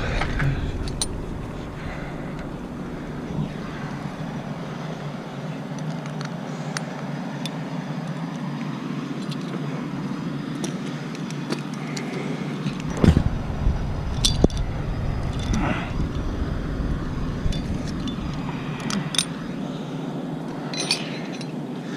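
An engine running steadily at a low, even speed, with scattered light metallic clinks and a couple of sharper knocks past the middle.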